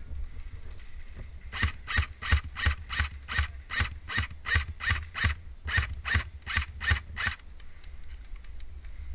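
Footsteps of a player running, crunching rhythmically at about three steps a second for around six seconds, then stopping.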